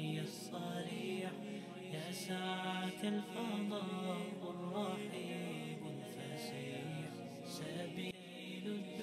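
Background Arabic nasheed: a voice chanting a slow devotional melody in long, wavering held notes.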